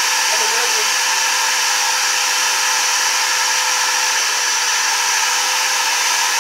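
Shop vacuum running steadily: a constant rush of air through its hose with a faint steady whine, its nozzle held against a concrete floor.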